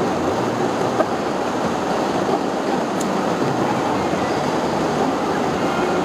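Steady road and engine noise from inside the cabin of a moving car, with one short click about a second in.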